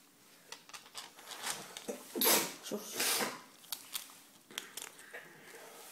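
A pet chewing and crunching on something, with many quick clicks and crackles; a brief voice about halfway through.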